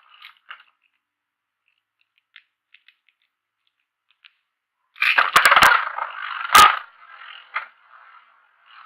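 A Beyblade Burst spinning top clatters and scrapes on hard plastic, starting suddenly about five seconds in with several sharp clicks, then settles into a lighter, uneven scraping.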